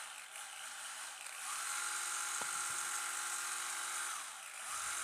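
Electric motor and four-wheel-drive drivetrain of an SG216 Pro 1/16 RC drift car whining as the wheels spin free off the ground. The pitch steps up about a second and a half in, drops away briefly near the end, then picks up again, with a single small click in the middle.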